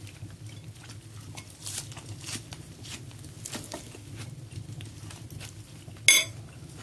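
Small clicks and rustles of table eating: a fork picking through salad in a bowl and a paper tissue handled while wiping sticky hands. One louder, sharp, crackly clatter comes about six seconds in, over a steady low hum.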